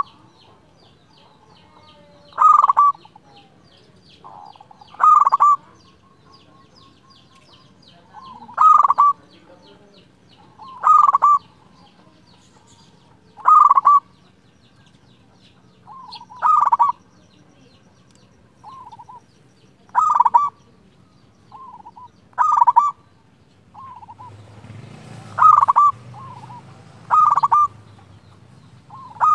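Local zebra dove (perkutut) singing its cooing song, one loud short phrase about every two to three seconds, about a dozen in all, with softer calls between them in the second half.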